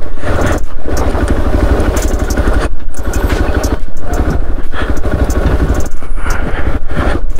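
Hero Xpulse 200 4V's single-cylinder engine running at low speed as the motorcycle crawls over loose rocks, with clattering and knocking of stones and suspension under the tyres.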